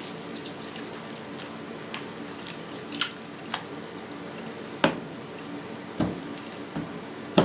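Hot suluguni cheese curd squelching and slapping as gloved hands press and knead it in a steel bowl of hot whey, squeezing the whey out of it. About six sharp wet slaps stand out, from about three seconds in to the end.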